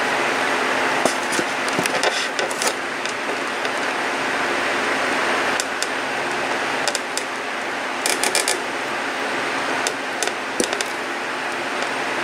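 Steady background hiss with scattered sharp clicks and taps, including a quick run of clicks about eight seconds in.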